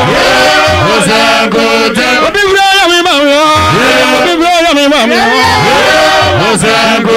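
Ghanaian church gospel song: a singer holds long notes with a wavering vibrato over steady instrumental backing.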